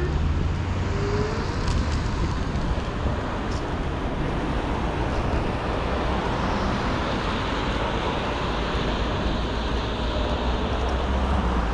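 Steady road traffic noise from cars on a busy road alongside, heard while riding beside it, with a strong low rumble.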